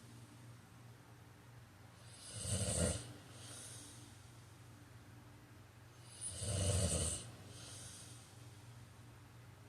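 A man snoring in his sleep: two snores about four seconds apart, each a loud snore followed by a softer, breathy hiss. A faint steady low hum runs underneath.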